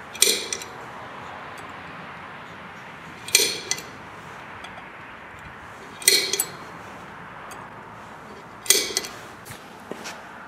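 Metal clinking four times, evenly spaced, each a quick cluster of two or three bright ringing clinks, as a machined metal fitting is handled against a cast-iron car brake disc's hub.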